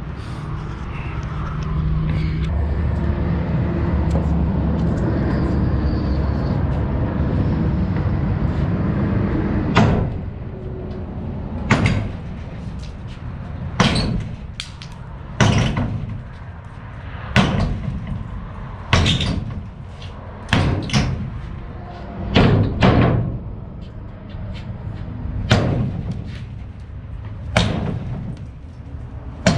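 Heavy blows knocking wooden 2x6 wall framing loose: a dozen sharp wood-on-wood impacts, roughly one every one to two seconds, starting about a third of the way in. Before them, a steady low rumble.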